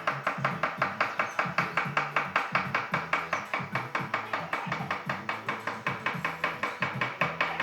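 Background music with a quick, steady beat of about four to five pulses a second over a stepping bass line.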